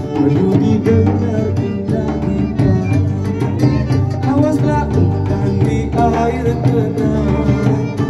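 Live music: a man singing to a hand-played frame drum, with other instruments accompanying.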